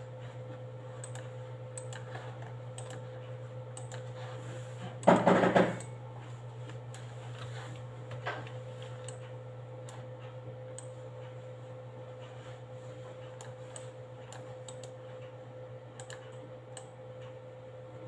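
Scattered clicks of a computer mouse and keyboard over a steady low hum, with one brief louder noise about five seconds in.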